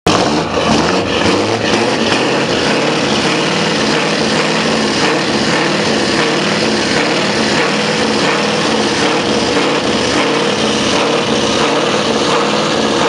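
Scania R520's V8 diesel running steadily at idle through a loud side-exit exhaust, with an even, lumpy low pulse and no revving.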